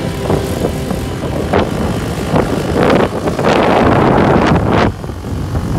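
Quad bike (ATV) engine running as the bike rides close by, loud and surging, loudest around the middle as it comes nearest.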